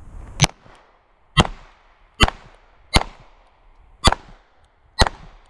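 Six 9mm pistol shots from a Beretta 92, fired one at a time at uneven gaps of about a second while engaging targets, each crack followed by a short echo.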